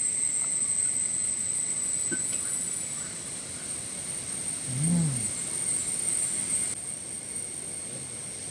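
Outdoor ambience with a steady high-pitched insect drone, and a short low call that rises and falls about halfway through.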